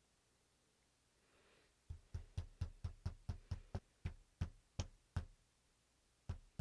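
Glass bottle filled with thick styling gel knocked down repeatedly on a hard surface to settle the gel and work out air bubbles: a quick run of sharp knocks, about four a second, starting about two seconds in, then a pause and another knock near the end.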